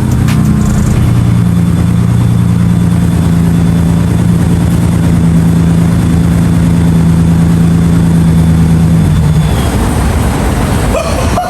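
Mitsubishi 3000GT's big-turbo V6 running loud at steady revs, its pitch holding level, then dropping away about nine and a half seconds in.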